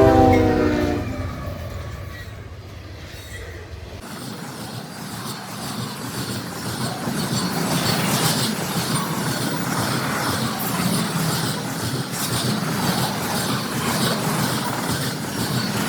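A CSX manifest freight train passing at speed. The locomotive horn's chord trails off about a second in, then freight cars roll by with a steady rumble and rapid wheel clatter on the rails, growing louder.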